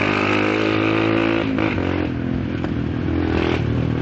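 Motorcycle engine running under way, heard from on the bike. Its note holds steady, then drops about a second and a half in and carries on at a lower pitch.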